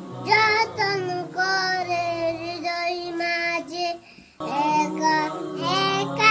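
A young boy singing a gojol, a Bengali Islamic devotional song, solo in long held melodic notes, with a brief pause for breath about four seconds in.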